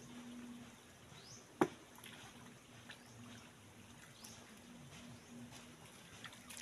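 Faint trickling and dribbling of shallow muddy water as hands grope through it. One sharp click about one and a half seconds in, and two faint rising chirps.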